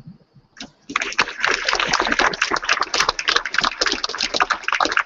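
Audience applauding, starting about a second in: many hands clapping at once, a dense and steady mass of claps.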